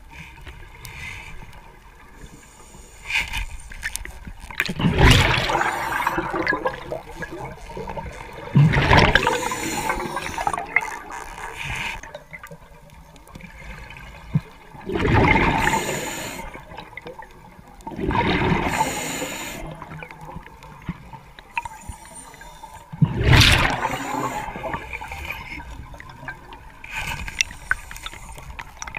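Underwater scuba breathing: a diver's exhaled bubbles gurgle and rush out in a burst every three to five seconds, about seven times, over a low steady wash of water.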